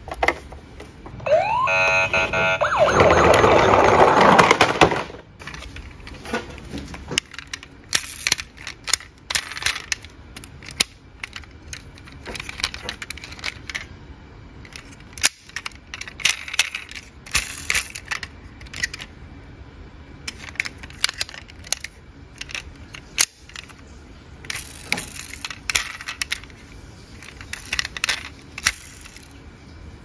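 Tonka Sheriff toy truck's electronic siren sound effect about a second in: a short rising wail, then steady alarm tones and a few seconds of loud, rough noise that cuts off. After that come scattered light clicks and rattles of toy cars being handled.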